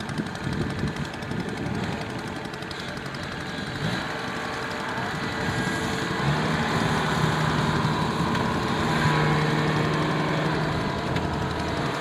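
Kubota DC-70 combine harvester's diesel engine running steadily as the machine drives into standing rice, with a steady low hum coming in about six seconds in.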